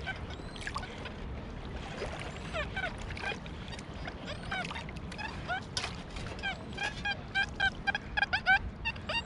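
XP Deus II metal detector on firmware 7, program 3, giving a string of short warbling polyphonic beeps as the coil sweeps over a target. The beeps come thicker and faster in the second half. The mixed tones mark more than one target, likely with iron among them, under a summed VDI of 85.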